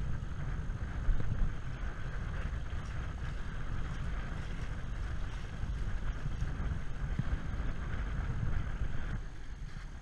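Hobie Cat catamaran under sail: wind buffeting the boat-mounted microphone with a low rumble, over a steady rush of water along the hulls. The rush eases near the end.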